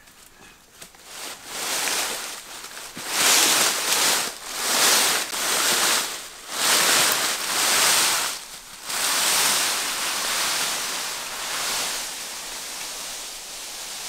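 Dry leaf litter rustling and crackling as a long snake body is dragged across it and a person walks over it. The rustling builds about a second in and comes in repeated swells.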